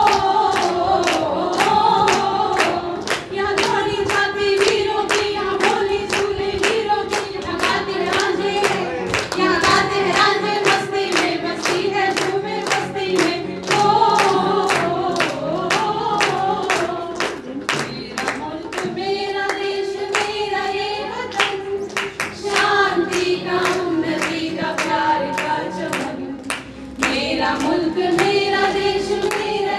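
A small group of women singing a song together in unison, with clapping keeping a steady beat. The singing breaks briefly twice, about two-thirds of the way through and again near the end.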